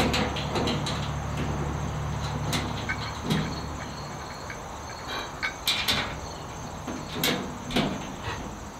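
Scattered light clicks and knocks of a metal bar handle and its screws against the sheet-metal back of a smoker cabinet as the handle is fitted by hand. Crickets chirr steadily underneath, and a low hum fades out about three seconds in.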